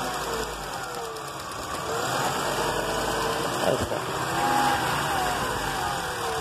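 Volkswagen Bora 2.5's inline five-cylinder engine idling evenly with no misfire, its missing spark on cylinder 5 cured by a repaired engine computer. A brief knock a little past the middle.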